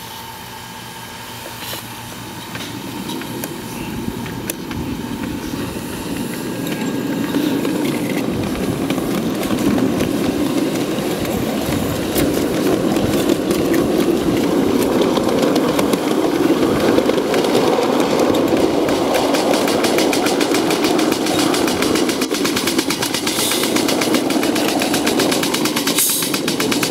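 Live-steam scale model of ET&WNC No. 12 'Tweetsie' pulling away and gathering speed, its exhaust chuffs quickening and growing louder over the first ten seconds or so, then running steadily.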